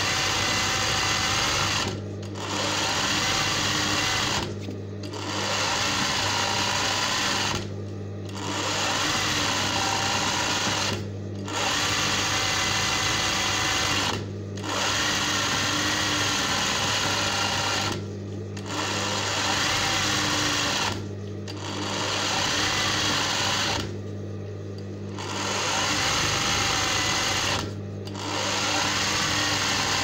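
Sewing machine stitching free-motion embroidery, running in spells of two to three seconds with brief stops between them, about ten times over.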